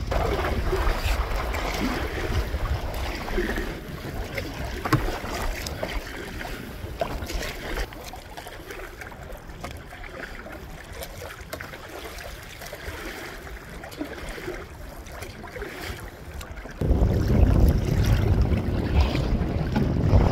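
Wind buffeting the microphone over choppy lake water lapping against a canoe; the low wind rumble gets much heavier near the end.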